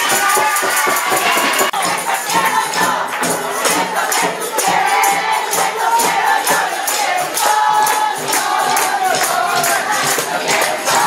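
Music with a group of voices singing or chanting over a steady, quick shaken-percussion beat, with crowd noise underneath.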